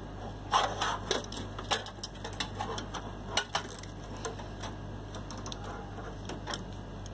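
Scattered small clicks and taps from handling an electromagnetic relay and opening its plastic cover to get at the contacts, most of them in the first half.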